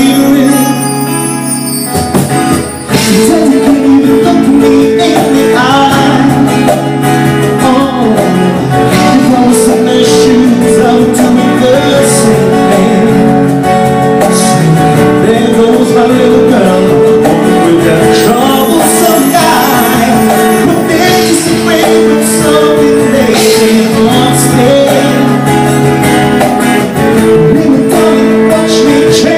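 Live band playing: a man singing into a microphone over electric guitar and percussion.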